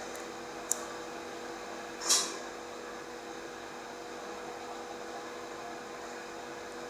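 Steady machine hum with a few fixed tones, broken by a sharp click about a second in and a short hiss about two seconds in.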